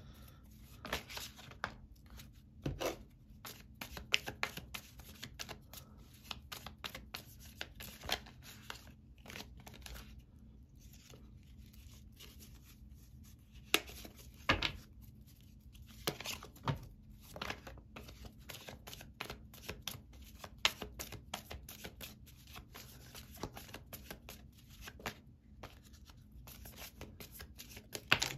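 Tarot cards being shuffled and handled: an irregular run of soft flicks and slaps, with a few sharper snaps near the middle.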